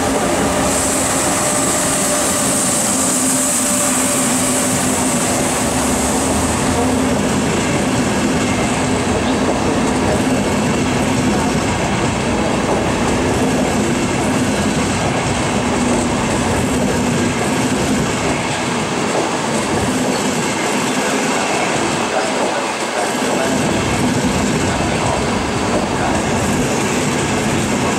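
Trenitalia Frecciarossa ETR 500 high-speed train rolling past close alongside the platform: a loud, steady rumble of wheels on rail with a low hum. A high hiss runs through the first few seconds.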